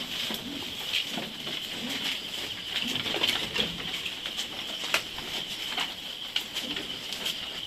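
Low, rounded cooing calls repeating every second or so over a steady high-pitched buzz, with scattered sharp clicks.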